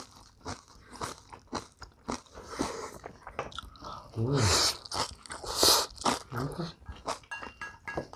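Close-up chewing of crunchy food, young radish kimchi and bibimbap: many small crunches and mouth clicks, with two louder hissing mouth sounds in the middle and a short hum about four seconds in.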